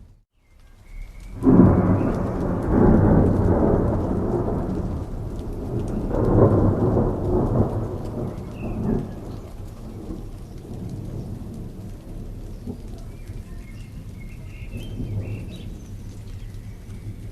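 Thunder rolling over steady rain. A brief dropout at the start gives way to a loud rumble about a second and a half in, a second roll around six seconds, then steady rainfall.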